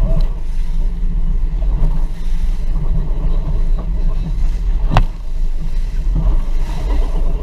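A Sealegs 7.7 m amphibious boat running fast under outboard power, its engine drone mixed with the rush of wind and water past the hull. About five seconds in there is a single sharp knock.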